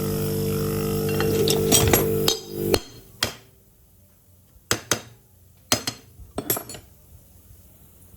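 A machine's steady hum that cuts off about two and a half seconds in, followed by several sharp metal clinks and taps, as of tools on metal.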